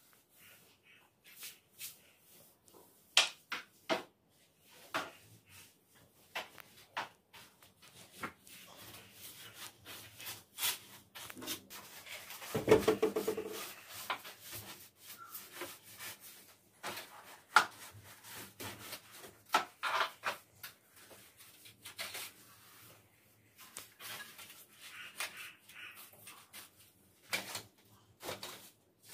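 Long-handled broom brushing and scraping along a ceiling and the underside of a loft shelf, with scattered scrapes and light knocks. A brief pitched sound comes about halfway through.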